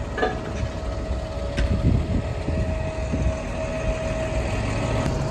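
Fendt 936 tractor's engine running, a steady low rumble with a constant whine above it, as the tractor is brought up to the plough's headstock to hitch on.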